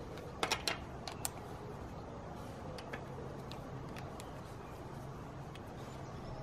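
Plastic Meccano parts clicking and clacking as they are handled and fitted together, and a plastic nut worked with a plastic spanner. A quick cluster of sharp clicks comes about half a second in, another about a second later, then scattered single clicks.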